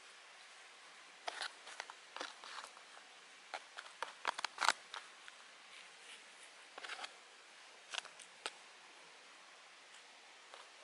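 Faint hiss broken by irregular clusters of short, sharp crackles and clicks, handling noise as the camera and seedling tray are moved about. The crackles start about a second in, are busiest around the middle, and die away after about eight seconds.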